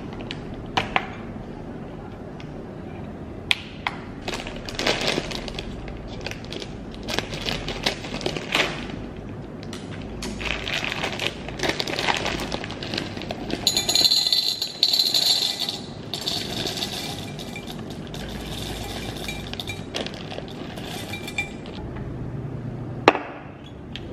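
Chocolate chips poured from a plastic bag into a glass measuring jug, rattling and clinking against the glass, with the bag crinkling. A sharp knock near the end as the glass jug is set down.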